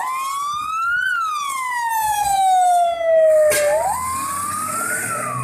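Fire engine siren wailing, its pitch climbing and falling in slow sweeps, rising about a second in, falling, then climbing again near the end.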